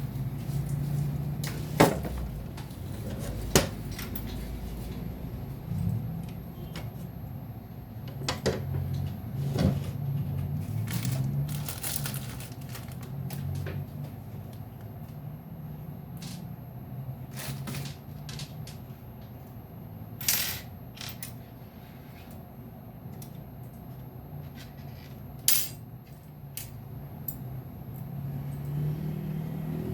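Scattered sharp clicks and clinks of small hard parts being handled and set down, irregular and a few seconds apart, over a low steady rumble.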